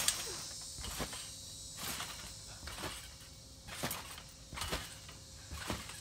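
Trampoline mat and springs thudding as a child bounces, a sharp stroke roughly once a second, over a steady high-pitched buzz of insects.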